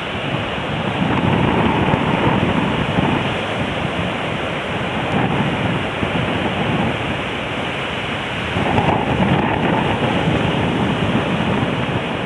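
Ocean surf breaking on a beach, with wind buffeting the microphone. The noise swells louder twice, once a second or two in and again near the end, as waves break.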